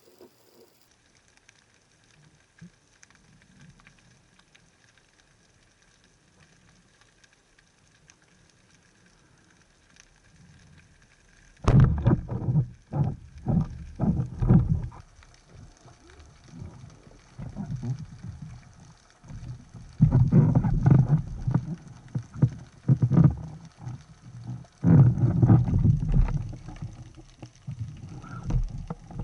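Underwater sound of a spearfisher deliberately making noises: faint at first, then from about twelve seconds in, loud, low, irregular sounds in clusters that come and go for the rest of the time.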